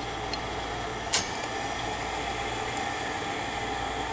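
Shibaden SV-510U reel-to-reel video tape recorder running with its cover off: the spinning head drum and main drive motor give a steady whirring hum with a few held tones. A single sharp click comes about a second in.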